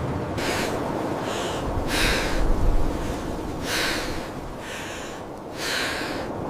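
Steady low rush of wind, with short hissing sounds repeating irregularly about once a second.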